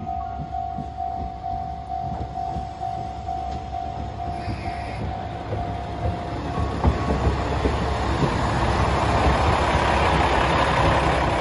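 Level-crossing warning bell dinging rapidly over and over, stopping about six and a half seconds in, while a KiHa 120 diesel railcar approaches. The railcar's engine and wheels grow steadily louder and are loudest near the end as it passes close by.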